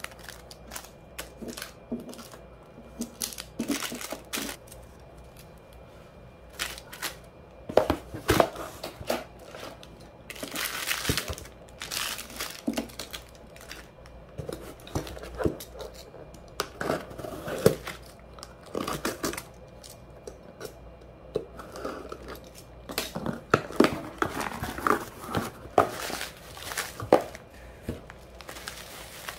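Plastic packaging handled by hand: small clear plastic bags of nail-art charms rustle, crinkle and click against each other in irregular bursts. Near the end a bubble-wrap parcel is crinkled.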